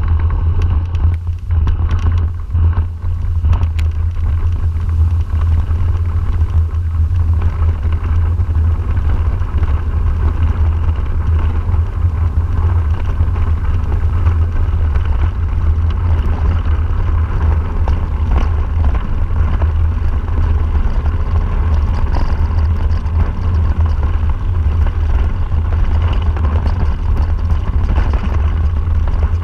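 Steady low rumble of wind buffeting the microphone and mountain-bike tyres rolling over a dirt and gravel trail on a descent, with a few short knocks from bumps in the first few seconds.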